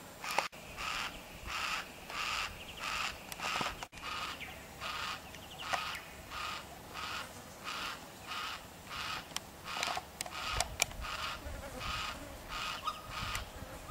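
Yellow-tailed black cockatoo calling over and over, short calls at an even pace of about two a second, with a few sharp clicks in between.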